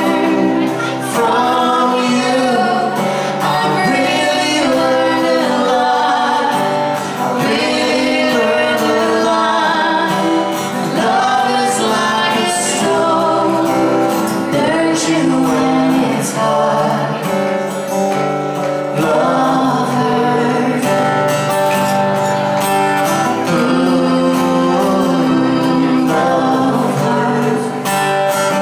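Live duet: a woman and a man singing a slow ballad into microphones over instrumental accompaniment.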